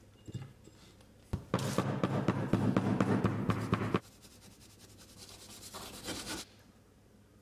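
A steel blade scraping packed, crumbly casting sand level with the top of a small metal moulding flask: a light knock, then a gritty scrape lasting about two and a half seconds, and a fainter, shorter scrape near the end.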